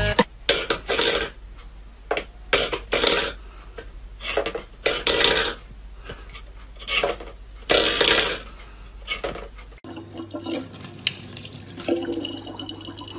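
A cat knocks a stainless steel bowl about on a wooden floor: about a dozen short clatters and scrapes at irregular intervals. Near the end, a thin stream of water runs from a tap into a plastic bottle over a low steady hum.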